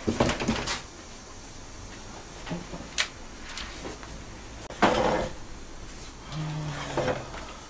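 Computer hardware being handled on a workbench, with a few clicks at the start, a sharp click about three seconds in, and a louder knock about five seconds in, as a desktop PC case is moved aside and a laptop is set down on the desk mat.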